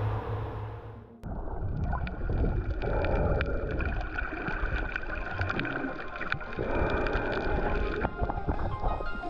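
Twin Honda outboard motors running under way, fading and then cutting off sharply about a second in. Then comes muffled underwater sound from a submerged camera among snorkelers, with scattered clicks and crackles and a faint steady tone.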